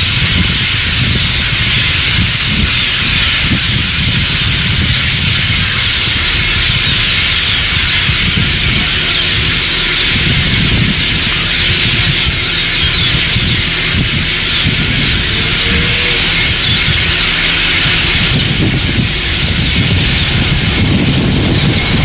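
A large flock of birds perched in bare trees, many calling at once in a loud, dense chatter of high squeaks and chirps, with a low rumble underneath.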